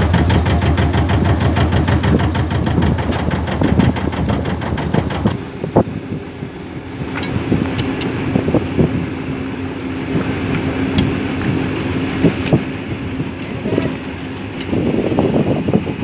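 A small boat's motor running while the boat is under way. After about five seconds it gives way to scattered sharp metal clinks and knocks from a wrench on the bolted flanges of a leaking cement-discharge hose, over a steady hum.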